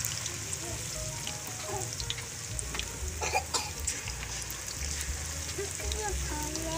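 Hot oil sizzling steadily in a pot of deep-frying potato pakoras as handfuls of batter are dropped in, with a few small crackles.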